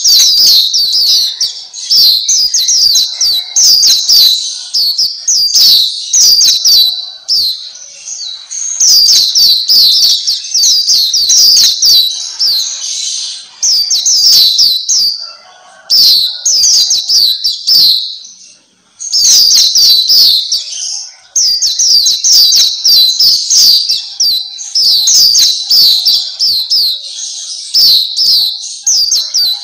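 Black-capped white-eye singing a fast, high twittering song: long runs of rapid chirps, broken by two brief pauses about 15 and 18 seconds in.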